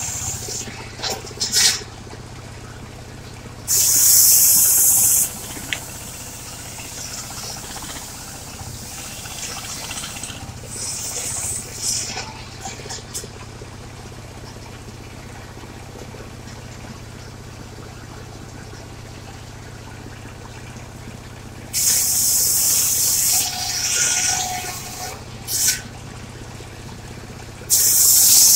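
Portable circular sawmill running steadily with a low hum, cutting mahogany: three short, loud hissing bursts as the blade passes through the wood, about four seconds in, about twenty-two seconds in and near the end.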